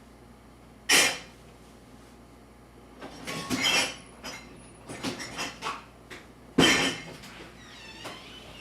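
Household handling sounds: a sharp bang about a second in, then clusters of clatter and rustling, and a second sharp bang a little before the end, like doors being shut.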